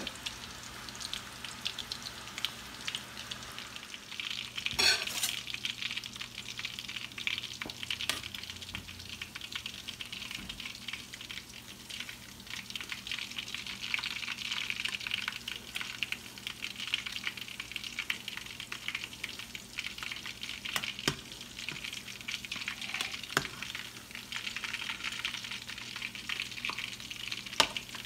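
Chicken-wrapped scotch eggs deep-frying in a pot of oil on lowered heat: a steady crackling sizzle of bubbling oil, with a few short clicks now and then.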